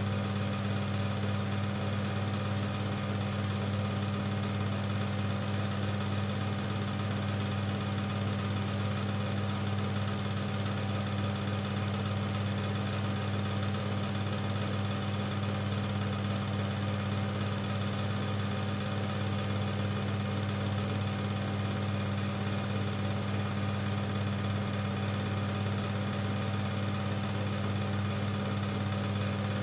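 Super 8 film projector running with a steady, even mechanical hum.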